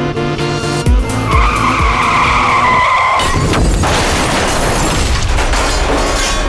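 Loud vehicle noise with a dense rushing hiss and a high whine from about one to three seconds in, over background music.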